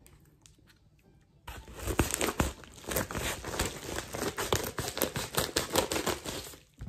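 Kraft paper mailer envelope crinkling as it is cut open with scissors, with many sharp clicks, starting about a second and a half in.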